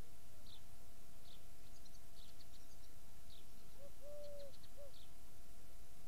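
Small birds chirping in short high calls about once a second, with a dove cooing once about four seconds in: a short note, a long one, then a short one.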